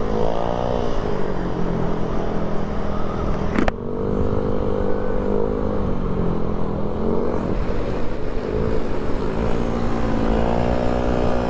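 Yamaha Aerox scooter engine running at road speed, its pitch easing off and picking up again several times, with wind rushing over the microphone. A sharp knock sounds about three and a half seconds in.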